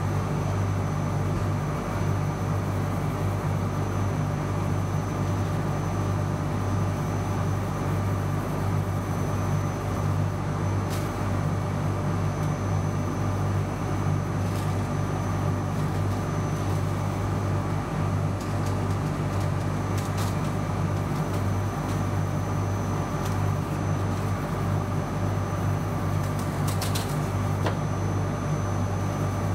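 Steady low electric hum of workshop machinery, a motor or fan, running evenly throughout, with a few faint light clicks.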